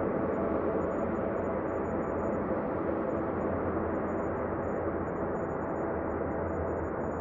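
Steady, unchanging ambient space drone: a dense low rumble and hiss with a faint held hum underneath.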